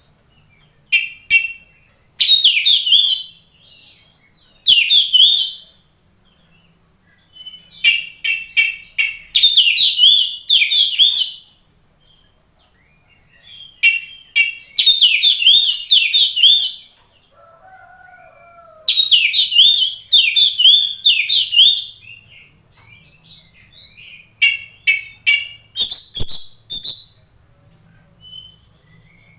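Oriental magpie-robin (kacer) singing vigorously in repeated phrases of rapid, whistled warbling notes, each phrase a second to a few seconds long, with short pauses between them.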